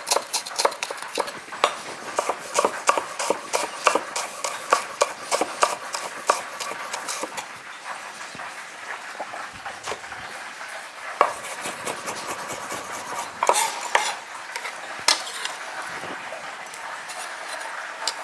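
Kitchen knife dicing an onion on a wooden cutting board: steady knocks of the blade on the board, about three a second, for the first seven seconds or so, then only a few scattered knocks and scrapes.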